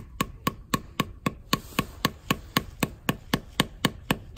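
A small wooden mallet tapping a hand-whittled wooden spile into a maple trunk, in rapid even knocks of about four a second. The knock goes from soft while the spile is driving in to hard once it sits at the right depth and makes a tight seal.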